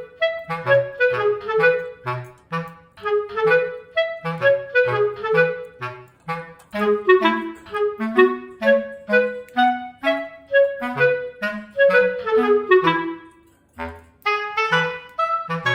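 Background music: a lively, clarinet-led tune of short notes over a regular bass line, pausing briefly near the end before it picks up again.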